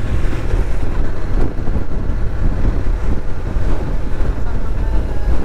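Steady wind rush over the microphone mixed with the running and road noise of a Honda NC750X parallel-twin motorcycle riding at a steady pace.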